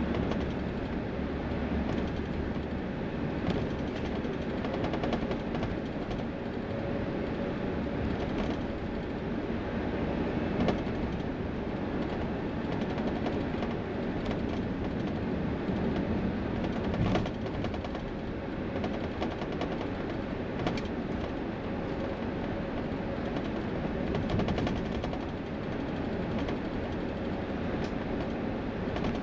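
Steady noise of highway traffic, with a dense crackle of short clicks throughout and no single clear pass-by.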